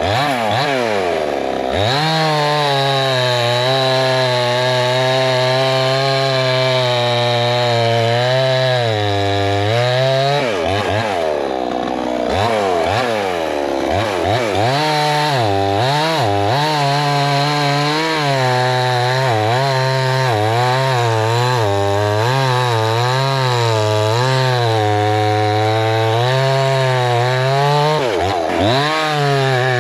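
Budget gas chainsaw running at high revs through long, steady cuts in wood. The engine drops back and revs up again between cuts, once near the start, for a few seconds in the middle, and again near the end.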